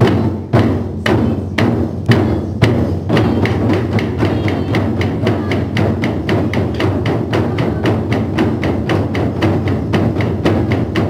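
Several taiko barrel drums (nagado-daiko) struck with wooden bachi sticks by a group playing together. Heavy strokes come about two a second at first, then from about three seconds in the playing turns faster and denser.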